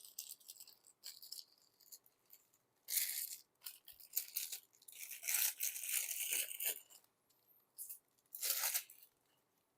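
Plastic instant-noodle packaging crinkling and rustling as it is handled, in several short bursts with a longer stretch in the middle.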